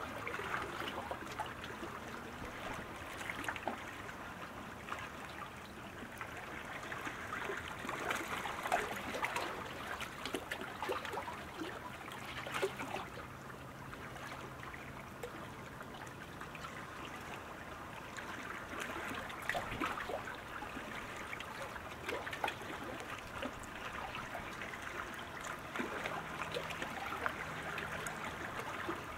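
Steady rush of water with many small scattered splashes, from sprint canoes and their single-bladed paddles cutting through lake water during a race.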